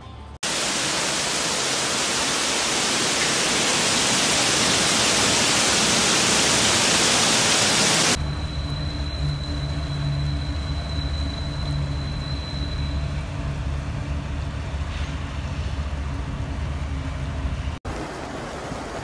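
Loud steady rush of floodwater. About eight seconds in it changes abruptly to a lower rumble with a steady hum under it, and near the end to a softer rushing hiss.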